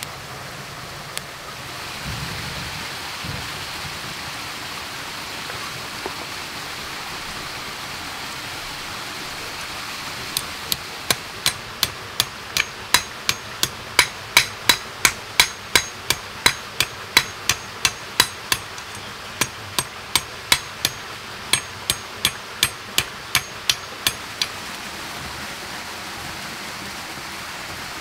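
A large knife blade striking a thin stick laid on a stone: sharp ringing taps about twice a second, starting about ten seconds in and stopping a few seconds before the end.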